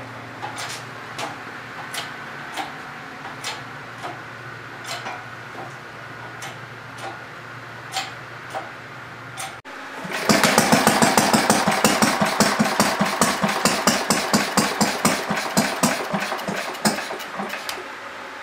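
A low hum with scattered clicks, then about ten seconds in the glass-head Briggs & Stratton single-cylinder engine starts at once and runs with a fast, even firing beat, dying away near the end.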